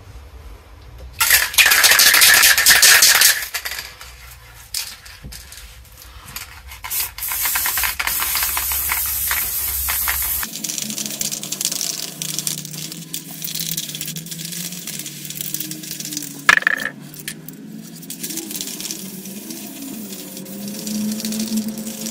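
Aerosol spray-paint can: a short loud hiss of spray about a second in, then the can shaken with its mixing ball rattling inside, then from about halfway a long steady hiss as black paint is sprayed onto the canvas.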